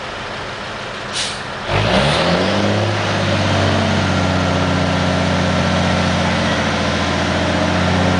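Diesel semi truck: a short air hiss about a second in, then the engine revs up and holds a steady, higher-revving drone, pulling under the load of a large billboard on its trailer.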